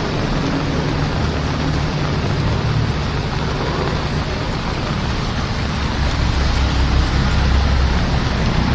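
Heavy rain falling steadily, with the low rumble of a vehicle driving through it; the rumble swells over the last few seconds.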